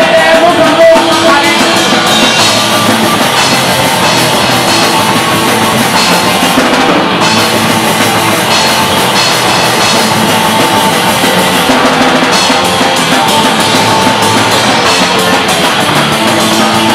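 Live punk band playing loud and steady with electric guitar, electric bass and a drum kit, its cymbals struck in a regular beat. This stretch is instrumental, with no singing.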